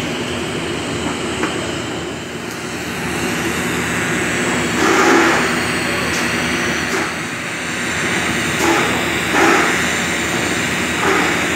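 TIG welding arc burning steadily on a vertical (3G) plate joint as the torch cup is walked along the groove, heard as a steady hiss over the welding machine's hum. A few louder swells come about halfway through and again near the end.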